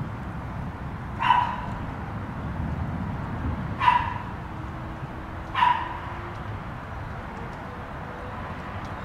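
A dog barking three times, single sharp barks a couple of seconds apart, over a steady low background noise.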